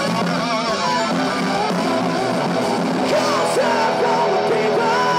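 Live rock band playing loud, with electric guitars and drums. A lead line bends and wavers in pitch, then holds long notes near the end.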